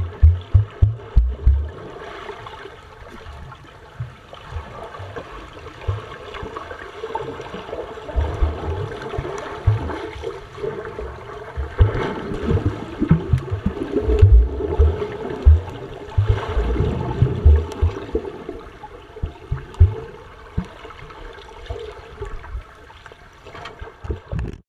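Pool water heard through an action camera's underwater housing: muffled churning and bubbling as swimmers dive and kick close by, with irregular low thuds throughout.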